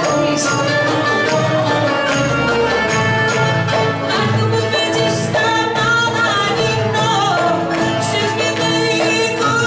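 Live rebetiko ensemble of bouzoukis, guitars and violin playing a song, with steady rhythm.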